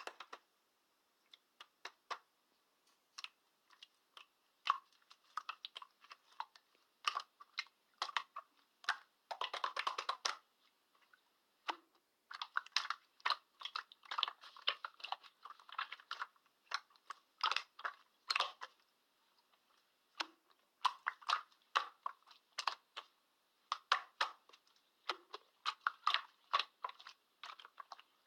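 Slime being squished and pressed by hand, making irregular wet clicks and small crackling air-bubble pops, with a denser run of crackling about ten seconds in.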